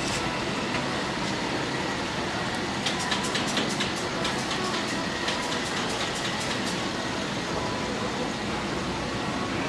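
Crepe griddle sizzling steadily as sauce is spread over the cooking crepe with a silicone spatula, over a constant background rumble; a run of quick crackling ticks comes from about three to seven seconds in.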